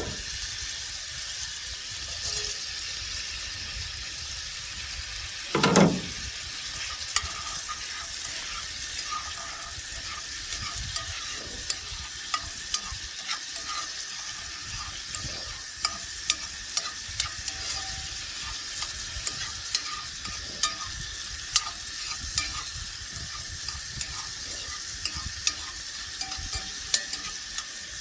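Chopped chicken and mushrooms sizzling in a pan while a spoon stirs them, clicking and scraping against the pan many times, with one louder thump about six seconds in.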